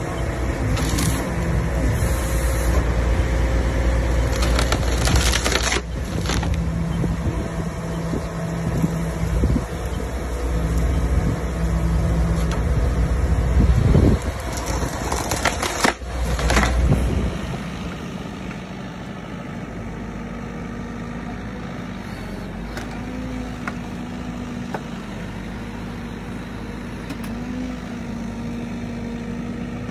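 A heavy machine's engine and hydraulics working hard as a tree-shear head cuts a log, with several loud cracks of wood. About 17 seconds in, this gives way to a quieter, steady excavator engine hum.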